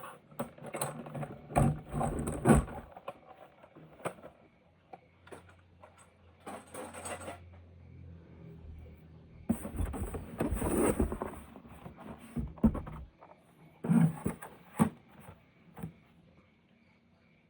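Irregular scraping and knocking of plastic toy vehicles and their packaging being handled, in several short clusters, with a low steady hum for a few seconds in the middle.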